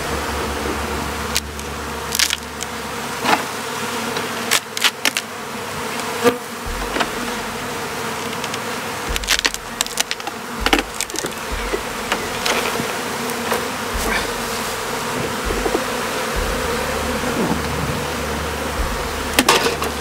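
Many honeybees buzzing around an opened hive that is being smoked and taken apart, with scattered sharp clicks and knocks throughout.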